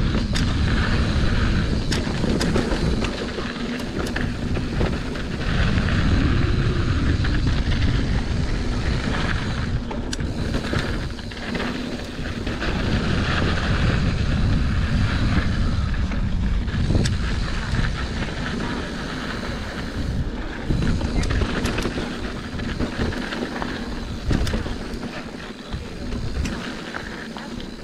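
Wind buffeting the microphone of a mountain bike riding down a flow trail: a rumbling rush that swells and fades with speed, with frequent sharp knocks and rattles from the bike over the trail surface.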